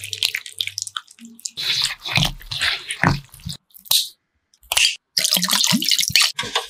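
Kitchen prep sounds of raw chicken feet: wet squishing and clicking as they are stirred in a chili-garlic sauce with chopsticks, then a sharp snip of kitchen scissors trimming the claws about four seconds in, then water sloshing around the feet in a pot.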